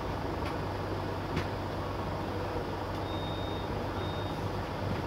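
A vehicle engine idling steadily, with two high electronic beeps, a longer one and then a short one, about three seconds in.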